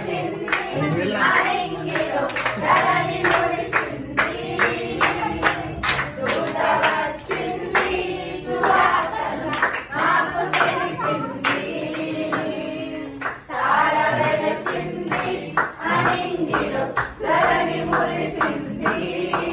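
A group of young people singing a Telugu folk-style Christmas carol together, with rhythmic hand-clapping keeping the beat.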